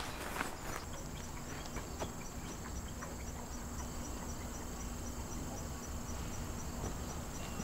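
Insects chirping: a steady high trill with an even pulse of about two to three chirps a second, starting just under a second in, over a faint outdoor hush with a few soft ticks.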